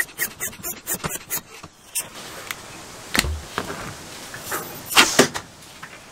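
1950s Aerite single-piston foot pump worked quickly by hand, puffing air into a balloon at about four strokes a second and stopping about two seconds in. A low knock follows, then a louder pair of sharp snaps near the end.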